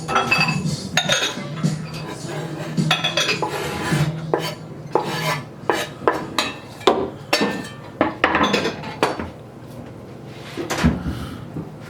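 Kitchen utensils clattering: irregular knocks and clinks of dishes and cutlery being handled, a few every second, over a low steady hum that fades out about halfway.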